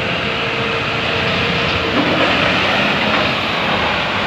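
Diesel engine of a Tata Signa multi-axle tipper truck running as the truck moves slowly over dirt ground, a loud, steady engine noise.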